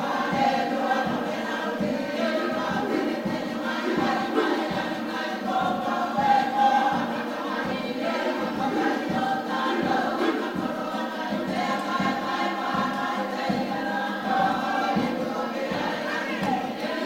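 A group of Cook Islands performers singing together in harmony, many voices at once, over a steady low beat.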